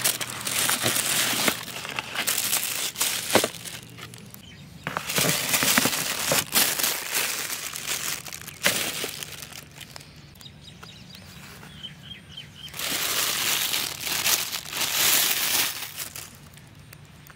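Thin plastic packaging bag crinkling and rustling in several bursts as a toy is unwrapped by hand, with a few sharp clicks and knocks from the packaging.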